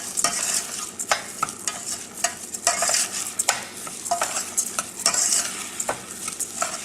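Basmati rice frying in butter in a pan, sizzling, while a spoon scrapes and stirs it in irregular strokes.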